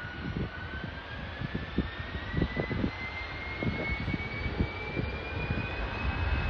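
Jet airliner's engines spooling up on the runway for takeoff: a whine rising steadily in pitch over a rushing engine noise that grows louder toward the end. Irregular low rumbles run underneath.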